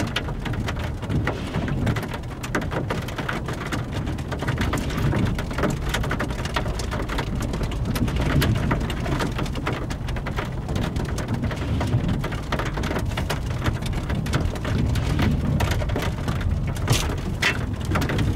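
Rain falling, with a dense patter of drops striking a surface close by, over a steady low rumble.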